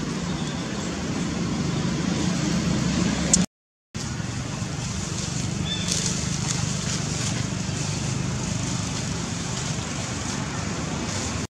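Steady outdoor background noise, a low hum under a hiss, with a sharp click and then a brief cut to silence about three and a half seconds in, and another cut near the end.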